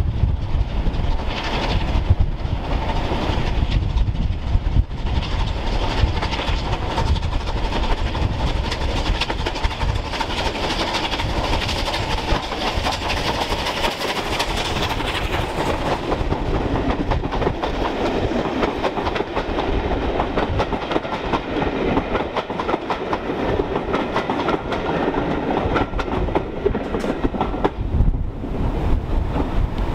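Bulleid Battle of Britain class three-cylinder steam locomotive 34072 passing at speed with a train of coaches. The engine's noise builds and peaks about halfway through, then the coaches' wheels keep up a long clickety-clack over the rail joints.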